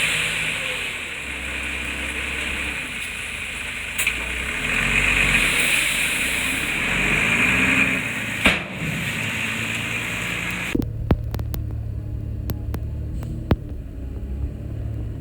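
Diesel engine of heavy construction machinery running and working, its pitch shifting up and down, with a couple of sharp knocks. About eleven seconds in, the sound changes abruptly to a lower, duller engine rumble with scattered clicks.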